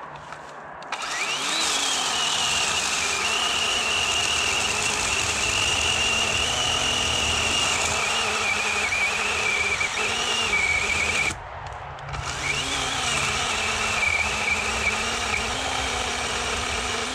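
DeWalt 20V cordless electric chainsaw, running a 14-inch Oregon bar and chain, cutting into a tree trunk. The motor whines up as the trigger is pulled about a second in, then settles to a lower pitch as the chain bites. It stops briefly around the eleven-second mark, then starts again and cuts until near the end.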